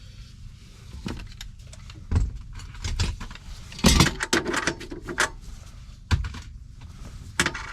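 Irregular metallic clicks and knocks of hand tools working on the fasteners that hold a truck's power inverter in place, with a louder cluster of clinks about four seconds in.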